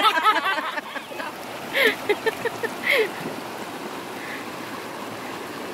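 Shallow river running over rocks, a steady rush of water, with excited voices in the first second and a few short calls around two to three seconds in.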